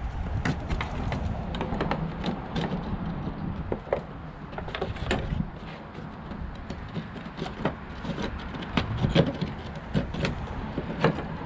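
Irregular light metallic clicks, clinks and scrapes as a loosened, rusty fuel pump lock ring is worked off the top of the fuel pump module by hand.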